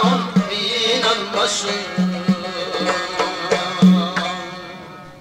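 Uzbek traditional song: a male voice sings a wavering, ornamented line over instrumental accompaniment. After that, low plucked or struck notes carry on alone, and the music fades out near the end.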